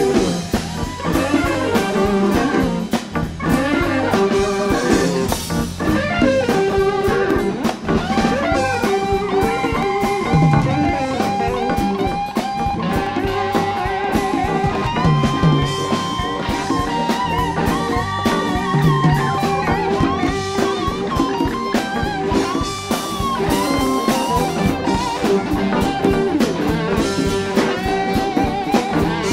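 Live blues-rock band playing an instrumental passage: an electric guitar solo of long, wavering, gliding notes over bass and a drum kit.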